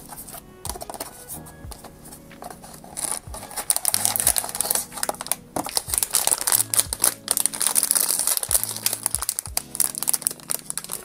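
Cardboard blind box being opened, then its sealed foil bag crinkling and being torn open, busier from about four seconds in. Soft background music plays underneath.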